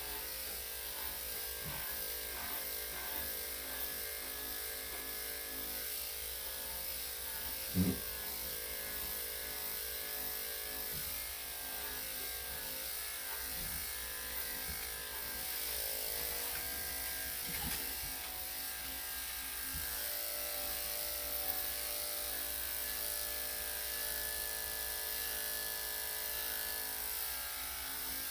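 Electric dog clippers with a #3¾ blade running steadily through a poodle mix's thick coat: a constant motor buzz with a high hiss. A short thump about eight seconds in.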